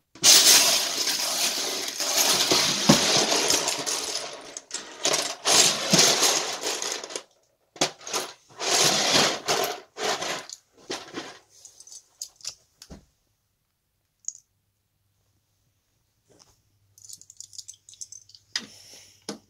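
Small plastic Lego pieces rattling and clattering as a hand stirs through a plastic bin full of them: dense and loud for the first several seconds, then in shorter bursts, thinning to scattered clicks.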